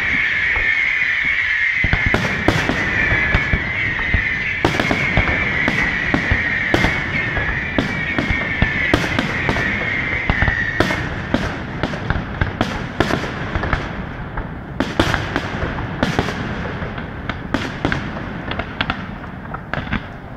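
Fireworks display going off: a dense run of sharp bangs and crackles over a constant rumble. A high shrill whistle holds until about eleven seconds in, and the bangs thin out and fade toward the end.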